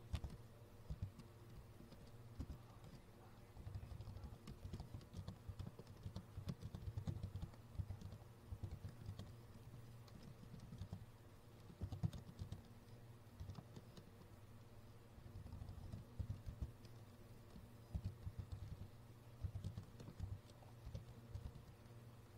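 Faint computer keyboard typing: runs of quick keystrokes with short pauses between them.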